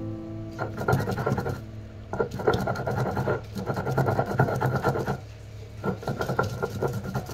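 Stone roller scraping back and forth over a flat stone grinding slab (sil-batta), crushing bottle gourd leaves, chillies and garlic into a chutney paste. The gritty grinding comes in three spells, pausing briefly twice.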